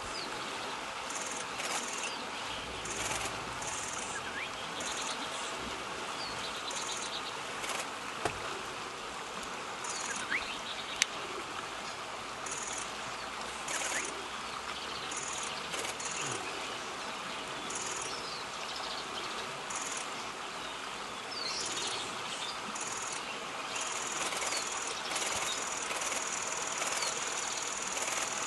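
Outdoor ambience of insects trilling in repeated high-pitched bursts, held longer near the end, over a steady rushing noise, with scattered short bird calls and two sharp clicks.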